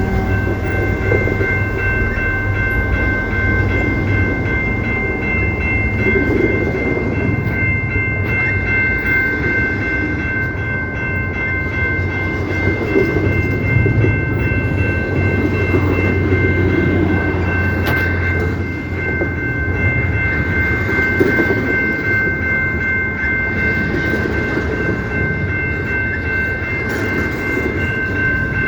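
CPKC train rolling past: a steady low rumble with rail noise, over which a chord of steady high-pitched tones is held throughout.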